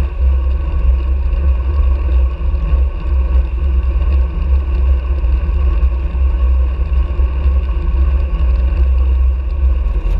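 Wind buffeting the microphone of a body-mounted action camera on a road bike riding at speed: a loud, steady low rumble with a faint steady hum above it.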